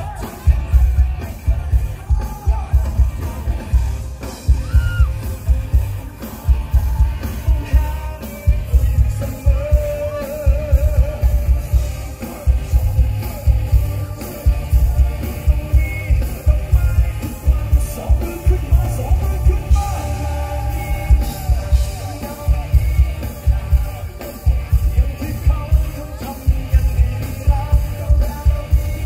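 Live pop concert music over a stage PA: a heavy, thumping bass beat with a singer's voice on top.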